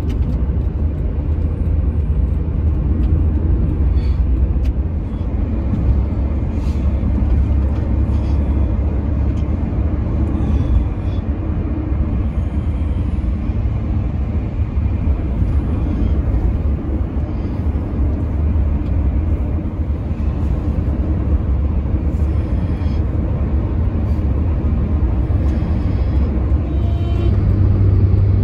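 Steady low rumble of road and engine noise inside a moving car's cabin on a highway, with a low hum that strengthens near the end.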